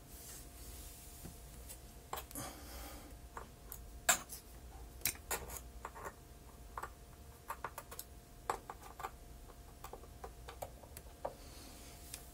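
Scattered small clicks and scrapes from a screwdriver working the speed-adjustment screw of a Technics SL-5 turntable as it spins, over a faint steady hum.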